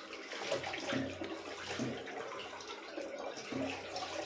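Tap water running into a sink and splashing as a razor is rinsed under it.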